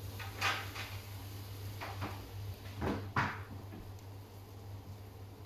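Several short knocks and clatters of kitchen things being handled and set down, the loudest about half a second and three seconds in, over a steady low hum.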